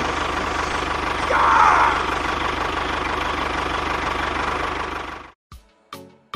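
A tractor's diesel-type engine running steadily at idle with a rapid, even knock, plus a brief higher-pitched rise-and-fall about a second and a half in. The engine cuts off suddenly about five seconds in.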